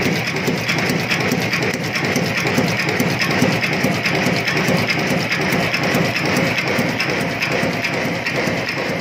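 11B6S nut former making bicycle spoke nipples, running at speed: a steady, rapid mechanical clatter of its forming strokes, gears and transfer mechanism.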